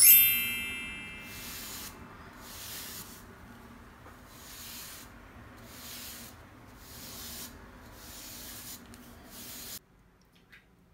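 A bright chime rings out at the start and fades over about a second and a half. Then a bristle body brush scrubs over bare leg skin in repeated strokes, roughly one a second, stopping abruptly near the end.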